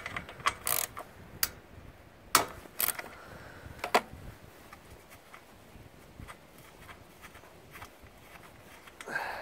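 Sharp clicks and knocks of a plastic recoil pull-starter housing being handled and set against a Honda lawnmower engine, several in the first four seconds, with a brief scrape near the end.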